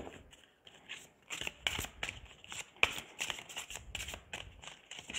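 A deck of large oracle cards being shuffled by hand: a run of quick, irregular papery slaps and flicks.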